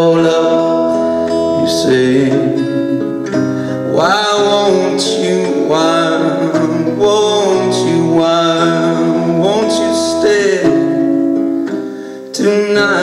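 Strummed acoustic guitar played with steady chords. A male voice sings wordlessly over it several times.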